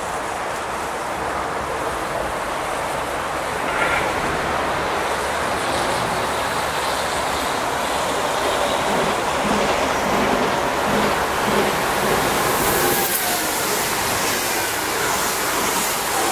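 NSB Stadler FLIRT electric multiple unit running on the rails toward the listener, a steady rumble of wheels and track with hissy wheel-on-rail noise growing louder in the second half.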